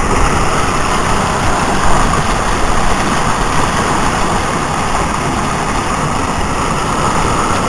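Floodwater rushing through a brook culvert in a steady, loud, unbroken wash of noise.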